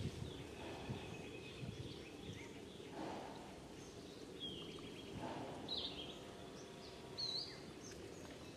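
Outdoor ambience: a steady low background noise, with a few short, high chirps in the second half.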